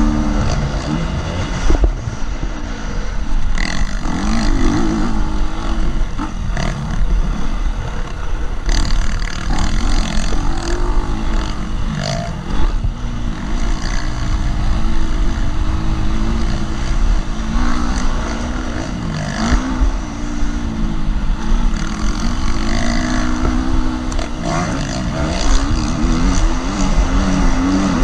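KTM 250 SX-F's single-cylinder four-stroke engine revving hard and dropping back again and again as the bike is ridden flat out around a motocross track. Wind rumbles over the microphone, and there are sharp knocks every few seconds.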